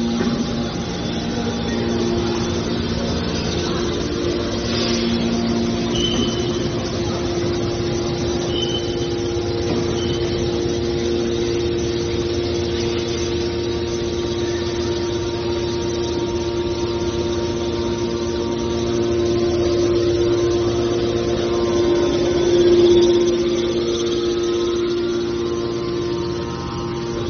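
Hydraulic scrap metal baler running with a steady machine hum, with a few short high squeaks in the first ten seconds and a brief swell in loudness a little past twenty seconds.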